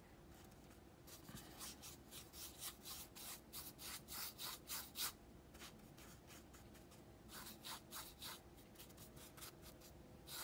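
Faint, rapid scratchy rubbing of a paintbrush's bristles stroking back and forth over a textured canvas, blending wet acrylic paint, about three strokes a second. The strokes come in two runs with a pause of about two seconds in the middle, then start again near the end.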